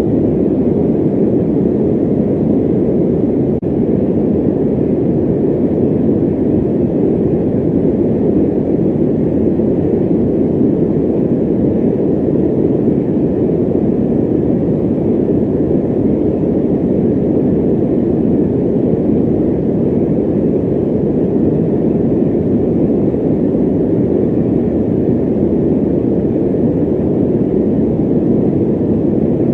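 Electric fan running steadily: an even, low rushing noise with no hum or whine and no change in speed.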